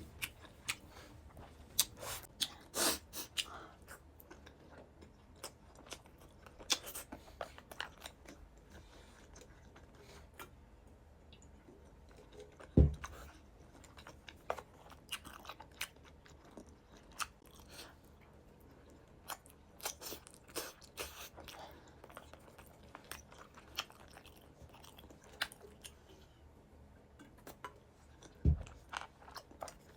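A person eating close to the microphone: wet chewing and biting with scattered small clicks and crunches. Two dull thumps stand out, about 13 seconds in and near the end.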